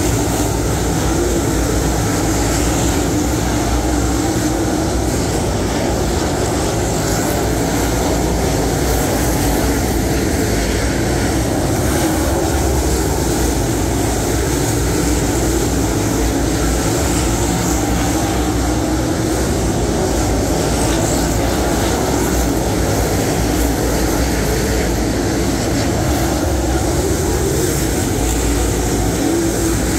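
Dirt late model race cars' open-exhaust V8 engines running at speed around a dirt oval, a loud steady drone that wavers slightly as the cars circle.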